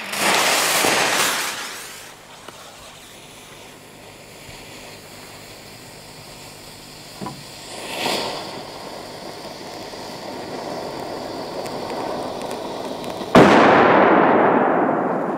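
Cobra 1 firecracker: its fuse hisses as it burns, then a single sharp bang goes off near the end, with its echo fading over a couple of seconds.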